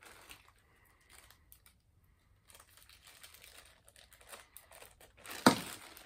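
Plastic packaging crinkling and rustling as it is handled and opened, in short uneven bursts, with one sharp crackle near the end.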